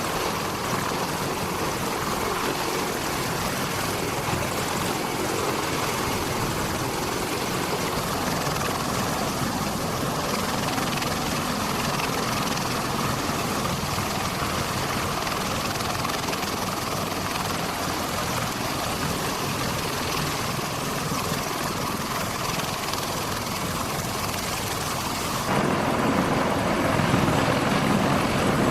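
A three-engine CH-53E Super Stallion heavy-lift helicopter running: a steady, loud rush of rotor and turbine noise. About 25 seconds in the sound changes abruptly, becoming louder and heavier in the low end with less hiss.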